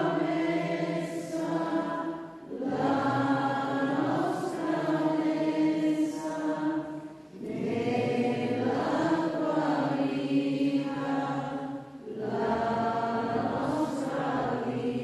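Voices singing a slow, chant-like offertory hymn at Mass, in long sustained phrases with short breaks between them about every four to five seconds.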